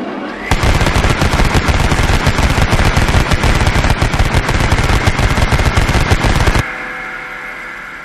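Machine gun firing one long, rapid, continuous burst of about six seconds. It stops abruptly, and the sound then fades away in a decaying echo.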